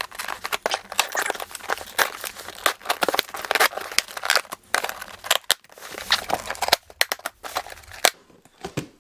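Heavily taped cardboard shipping box being torn open: packing tape ripping and the packaging crinkling in quick, irregular rips, thinning out near the end.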